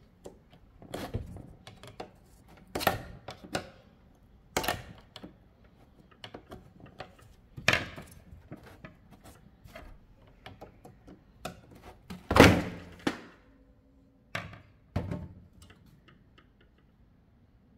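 Flat-head screwdriver prying up the crimp tabs of a Myvi radiator's aluminium header, and the plastic end tank being worked loose: irregular sharp clicks and knocks of metal and plastic, the loudest about twelve seconds in.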